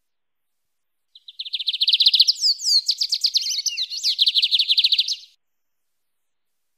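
Lined seedeater (bigodinho) singing its wild-type 'mateiro' song: one phrase of about four seconds, a fast trill of rapidly repeated high notes broken in the middle by a few sharp slurred notes, starting about a second in and cutting off cleanly.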